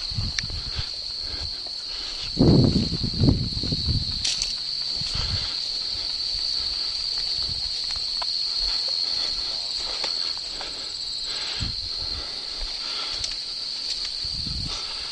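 Footsteps and gear rustling on an outdoor field, under a steady high-pitched insect chorus. A cluster of heavy thumps and rustling about two and a half seconds in is the loudest part.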